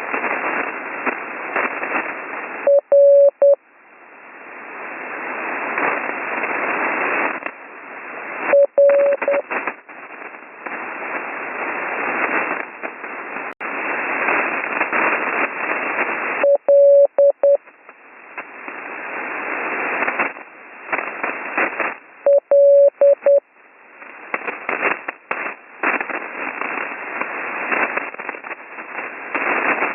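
Slow Morse code (CW) heard on an HF radio receiver: four short groups of a steady keyed tone, several seconds apart, as single letters of the words 'A World' are sent. Between letters there is heavy band static with crackles, which the uploader puts down to rough HF conditions during a lightning storm. The static dips after each letter and swells back.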